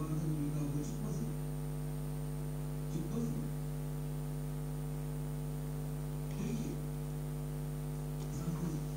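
Steady electrical mains hum, a stack of even tones that holds without change, with a few brief faint vocal sounds near the start, about three seconds in, and twice near the end.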